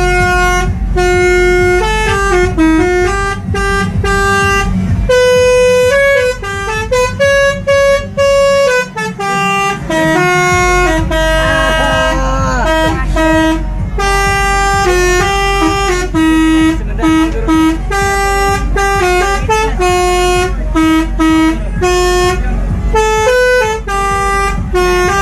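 Telolet musical air horn playing a tune: a long run of held, stepping horn notes over a low engine rumble that drops out briefly about nine seconds in.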